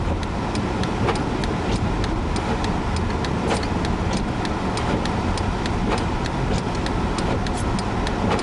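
Steady road and wind rumble of a vehicle driving through a blizzard, heard from inside the cab, with frequent sharp ticks, roughly three a second.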